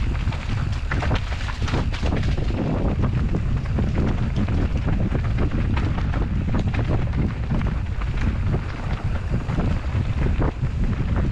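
Wind buffeting a GoPro Hero 9's microphone as a Rocky Mountain Slayer Carbon 50 mountain bike is ridden along a trail: a steady low rumble, with many sharp rattles and knocks from the bike and its tyres over rough ground.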